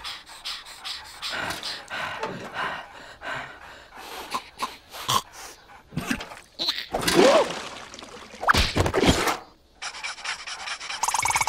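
Cartoon larva characters panting with their tongues hanging out, in a run of short quick breaths, with some voiced cries about seven to nine seconds in. A different steady sound starts near the end.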